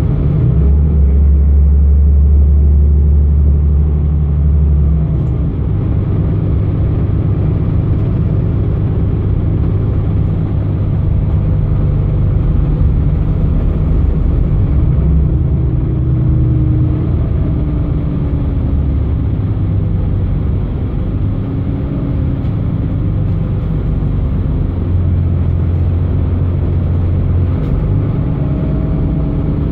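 Solaris Urbino 15 bus's 9.2-litre DAF diesel engine running while the bus is under way, heard from inside the bus: a loud, deep rumble whose low note shifts several times, with faint whines gliding up and down above it.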